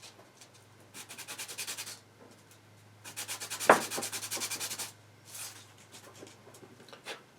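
Silver base plate being rubbed back and forth on sandpaper in two bursts of quick, rhythmic strokes, with a sharp knock in the middle of the second burst and a few lighter scrapes and taps afterwards.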